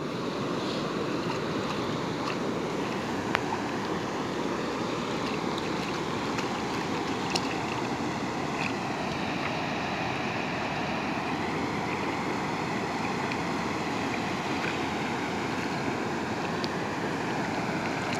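Steady rushing of river water, with a couple of brief clicks about three and seven seconds in.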